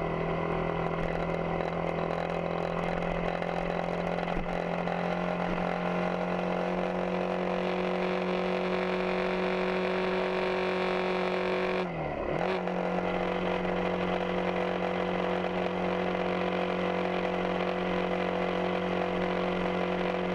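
Yamaha XTZ 250 Ténéré's single-cylinder engine running at a steady speed on the move. About twelve seconds in its pitch dips briefly and comes back up, then it holds steady again.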